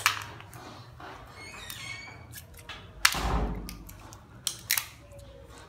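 Scattered sharp clicks and cracks of small crab shells being cracked and handled, with one heavier thud about three seconds in.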